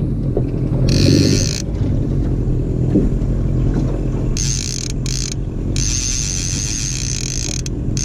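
Boat's outboard motor running steadily at trolling speed, a low even hum. A higher hiss with a wavering whine comes in briefly about a second in and again from the middle until near the end.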